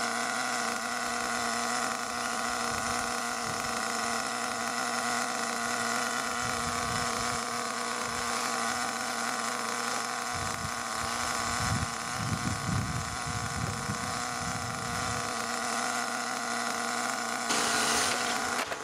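HPI Savage XL 5.9 nitro engine idling steadily at a constant speed while it is broken in at standstill. A low rumbling comes in for several seconds about ten seconds in, and a brief louder hiss comes near the end.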